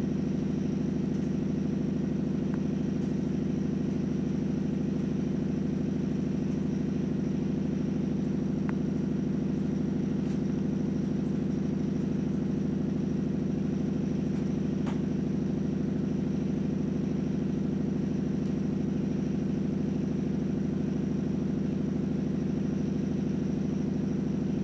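Domestic cat purring steadily, a low, even, pulsing purr with no breaks, from a cat asking to be petted.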